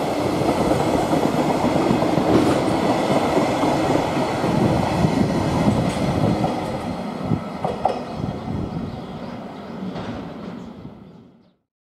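Freight-train container flat wagons rolling past on steel rails, loud and continuous with a few knocks. About seven seconds in, the sound dies away as the tail of the train draws off, and it cuts out near the end.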